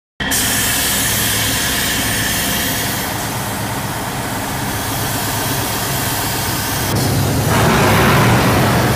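An engine running steadily under the hiss of a compressed-air paint spray gun. The hiss grows louder about seven and a half seconds in.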